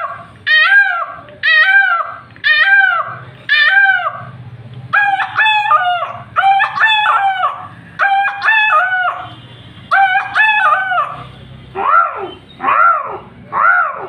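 A man imitating bird calls with his voice: a run of short peacock calls, about one a second, then from about five seconds in a series of longer rooster crows. Near the end comes a quicker run of short rising-and-falling calls.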